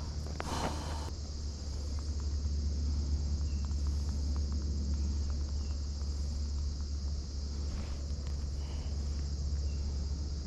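A high, continuous chorus of crickets trilling, over a steady low rumble. There is a brief rustle about half a second in.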